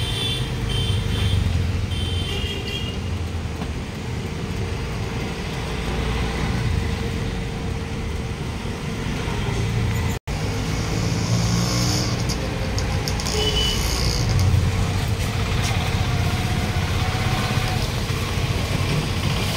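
Road traffic noise: a steady low rumble of passing vehicles, with a run of short high beeps in the first few seconds and a brief dropout about ten seconds in.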